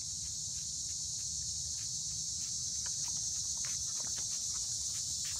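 Steady high-pitched drone of a summer insect chorus, with faint irregular tapping of steps on asphalt.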